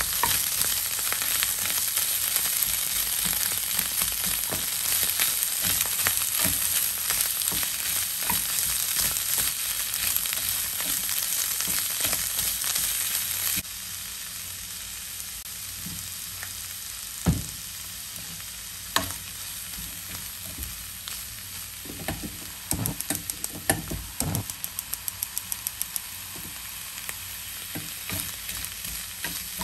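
Bamboo shoots, zha cai and scallions stir-frying in oil in a nonstick frying pan: a steady loud sizzle with the scrape of a wooden spatula turning the food. About halfway through the sizzle drops suddenly to a quieter level, broken by a few sharp knocks and, near the end, a quick run of small ticks.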